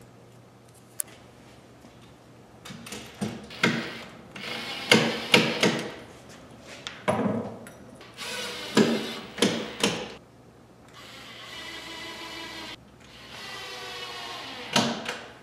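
Cordless drill running in two steady spells of a second or two each, worked at a door hinge on an MDF case. Before them comes a series of loud short knocks and clatters from handling the work.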